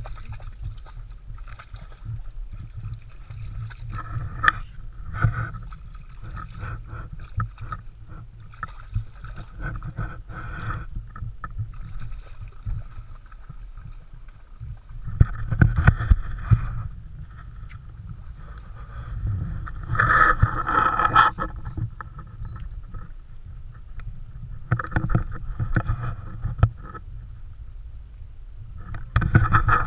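Muffled sloshing and splashing of a dog wading through a shallow stream, over a steady low rumble, swelling louder several times.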